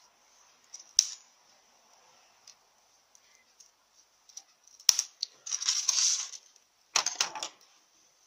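Metal parts of a Powerglide planetary gear carrier clicking and scraping as the assembly is worked loose and pulled apart by hand. There is a sharp click about a second in, another near five seconds, a scrape lasting about a second, and a short clatter about seven seconds in.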